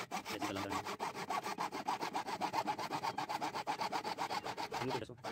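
Hacksaw cutting through a large-diameter PVC drainage pipe with fast, even back-and-forth strokes, stopping about five seconds in.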